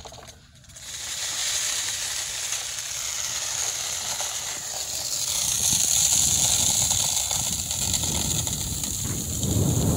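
Crushed gravel pouring and sliding off a tipped wheelbarrow into a drainage trench: a steady rushing hiss that starts about a second in and grows louder about halfway through.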